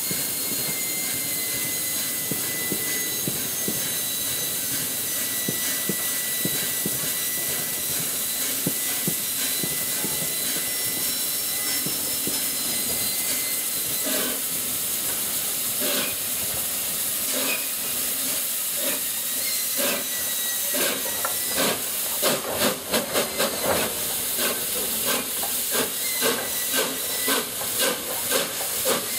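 LNER A4 Pacific steam locomotive, a three-cylinder engine, standing with a steady hiss of steam and a thin high tone. About halfway through it gets under way, and its exhaust beats come faster and louder toward the end.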